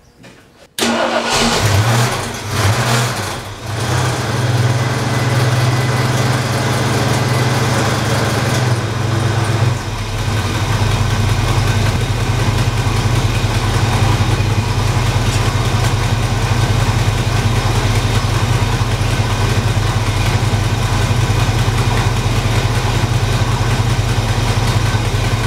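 A Ford 460 big-block V8 in a pickup starting up, catching almost at once about a second in. It runs unevenly for a few seconds, then settles into a steady idle about ten seconds in.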